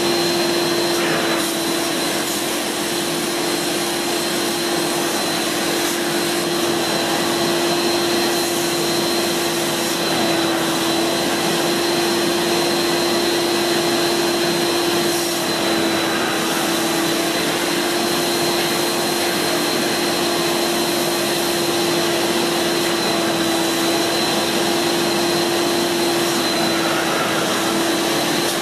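Kärcher Puzzi 100 spray-extraction cleaner's suction motor running steadily, a steady hiss of rushing air with a held whine, as its hand upholstery nozzle sucks across a fabric chair seat.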